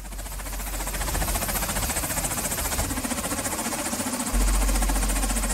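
UH-60 Black Hawk helicopter running on the ground with its rotors turning: a steady turbine and rotor noise with a fast flutter, and a deeper rumble that jumps louder about four seconds in.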